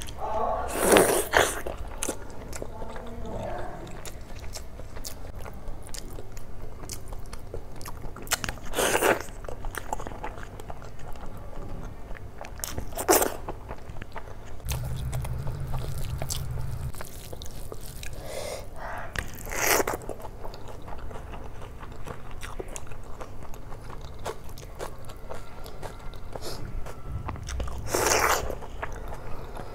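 Close-miked eating sounds: chewing and mouth smacking on mouthfuls of oily chicken and egg curry with rice eaten by hand, with about five louder bites or slurps spread through.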